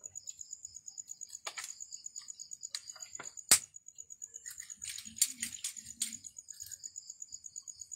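Scattered sharp clicks and knocks of objects being handled around a young green coconut, the loudest a single sharp click about three and a half seconds in and a quick run of clicks near the middle-to-late part. Underneath, a steady high insect trill pulses several times a second.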